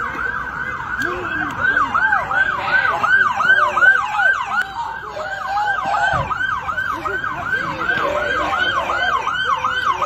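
Emergency vehicle siren in a fast yelp, rising and falling about three times a second without a break.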